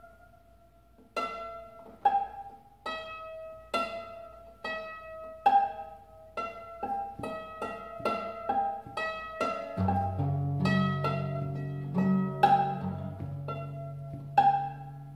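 Acoustic guitar with an Allen wrench under the strings at the sixth fret acting as a second bridge, improvised: single plucked notes about one a second that ring and fade, with low bass notes joining under them from about ten seconds in.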